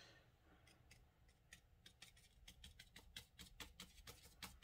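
Near silence with faint, quick taps of a large watercolor brush dabbing paint onto paper, sparse at first and settling into a steady run of about four or five a second from about halfway in.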